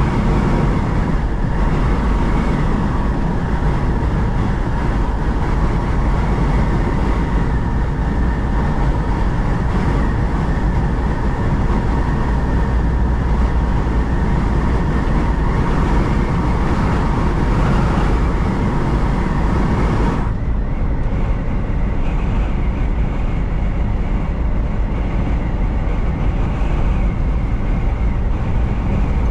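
A semi-truck running at road speed: a steady low rumble of engine and tyre noise with a thin steady tone in it. About twenty seconds in, the higher hiss drops away suddenly while the rumble carries on.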